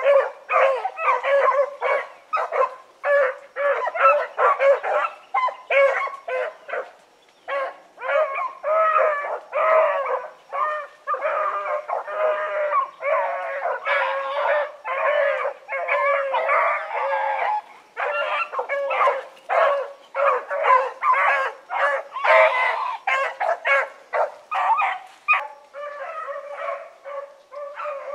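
A pack of rabbit dogs baying and barking in full cry, calls overlapping almost without a break: the hounds running a rabbit on its scent. The cry grows a little fainter near the end.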